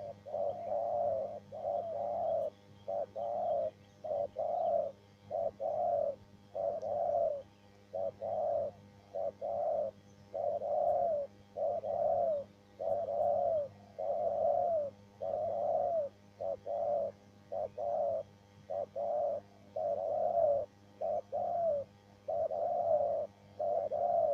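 Spotted dove cooing: a steady run of short coos, some in quick pairs, repeating without a break, over a faint low hum.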